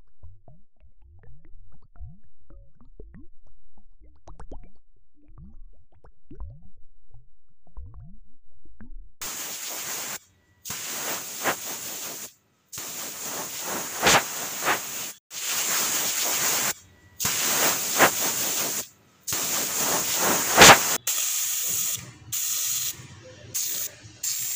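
Dental air-water syringe spraying water in repeated hissing bursts of one to two seconds with short breaks, the bursts growing shorter near the end: rinsing acid etching gel off a chipped front tooth. Before the spraying starts, about nine seconds of faint, short, low pops that each rise briefly in pitch.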